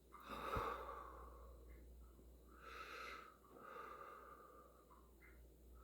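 A person's violent hiccup, one sharp loud jolt about half a second in, followed by heavy, noisy breaths.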